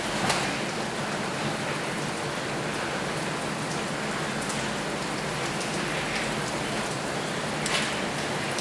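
Steady hiss and patter of water pouring down like heavy rain, from a shower spraying a bird enclosure, with a few faint sharp ticks.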